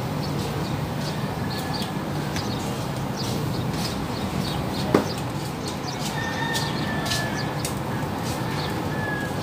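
Round scad grilling over charcoal, with scattered crackles over a steady background and one sharp metallic click about halfway through, as steel tongs knock against the grill grate while turning the fish.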